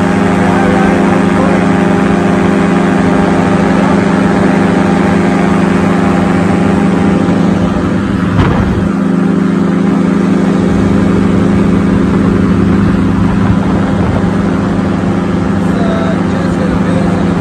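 Paramotor trike engine and propeller running at a steady drone in flight.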